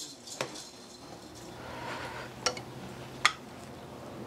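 Ladle scooping broth from an enamel pot and serving it into a clay bowl: three light knocks of the ladle against the pot and bowl over the soft slosh of liquid.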